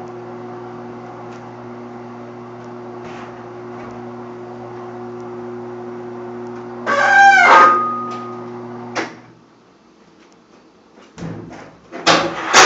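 Washing machine motor running with a steady hum, then a loud, short squeal about seven seconds in, which the owner blames on the belt. The motor stops about two seconds later, and a few clunks follow near the end.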